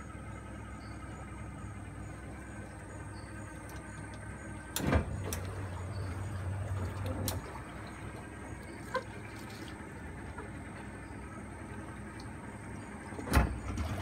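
Boat motor running in a steady low hum, louder for a couple of seconds after the first of two sharp knocks, which come about five seconds in and near the end.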